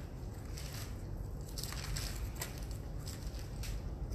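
Thin Bible pages being turned and leafed through by hand: a run of short papery rustles and crackles in several clusters, over a steady low room rumble.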